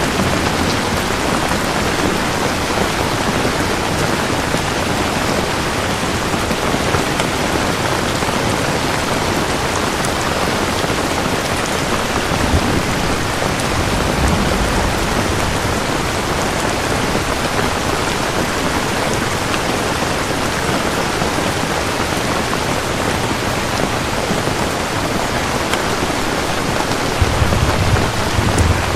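Steady, dense rain falling, with low thunder rumbling faintly about halfway through and again near the end.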